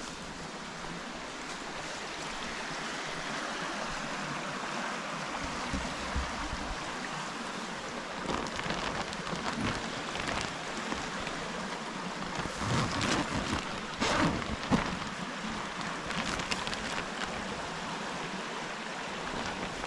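Steady outdoor rushing noise, with scattered rustles and knocks through the middle, the loudest about 13 and 14 seconds in.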